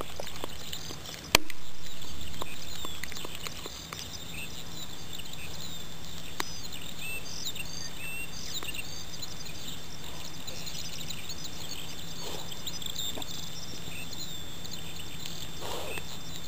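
A small dog chewing and crunching a huhu beetle, with scattered small clicks. There is one sharp knock about a second and a half in, and birds chirp in the background.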